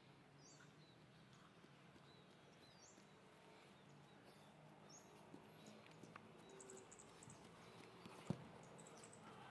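Near silence: faint outdoor ambience with a low steady hum, a few faint high chirps in the first half, and one sharp knock about eight seconds in.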